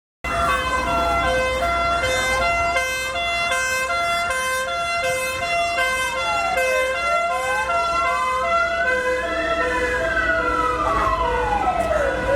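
Siren: a slow wail that rises and falls every few seconds, layered with a quicker two-tone hi-lo pattern over a steady low hum. It starts abruptly out of silence just after the start.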